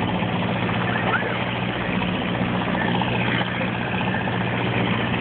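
Fishing charter boat's engine idling with a steady low hum, under a haze of water and wind noise.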